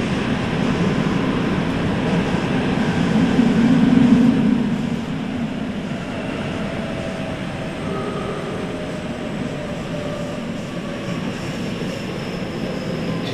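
Tokyo Metro 9000 series subway train with Toshiba IGBT inverter drive, running fairly fast through a tunnel and heard from inside the car: a continuous rumble of wheels on rails. The rumble swells about four seconds in, then drops back and runs on steadily.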